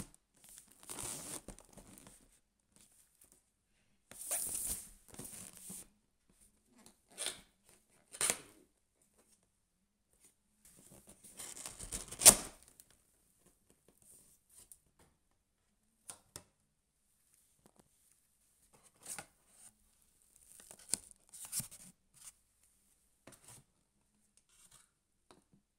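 A cardboard camera box being handled and opened by gloved hands: scattered scrapes and rustles of the box and its flaps, with the loudest event a single sharp snap about twelve seconds in. Near the end come lighter rustles of the paper manuals inside.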